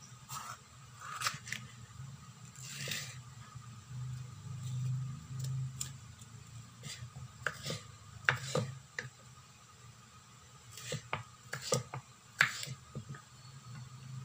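Kitchen knife slicing a red bell pepper on a wooden cutting board: irregular knocks of the blade on the board, with short slicing rasps in between.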